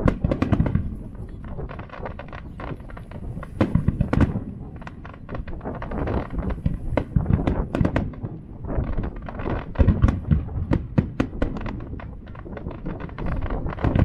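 Aerial fireworks shells bursting in quick succession: a dense run of booms and crackling reports, bunched in clusters every few seconds.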